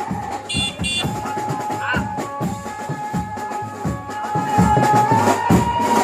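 Background music from a Mumbai banjo party band: a held, wavering melody line over a quick, steady drum beat.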